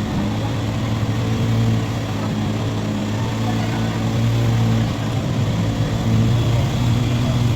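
A motor running steadily with a low, even hum that swells and eases slightly.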